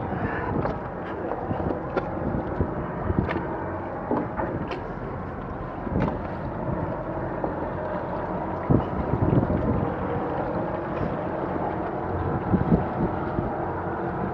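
Wind buffeting the microphone over a faint steady hum, with scattered knocks and clicks as ropes are handled and tied together on the hull of a capsized catamaran.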